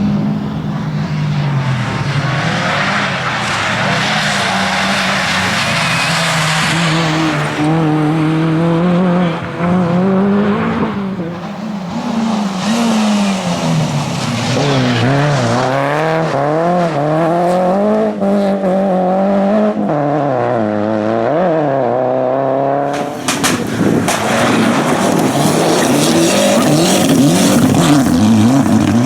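Rally car engines at full race pace, their note climbing and dropping again and again through gear changes and lifts, with tyre noise over them.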